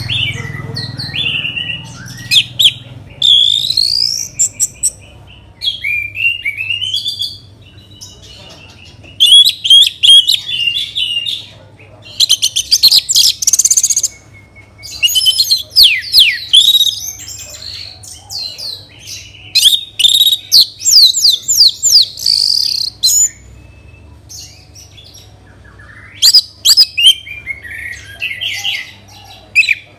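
Orange-headed thrush singing loud, varied song phrases of quick whistled glides, trills and chattering notes, in bursts of a few seconds with short pauses between.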